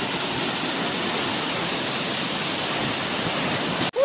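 Waterfall's water rushing in a steady, even roar, with a sudden brief dropout near the end.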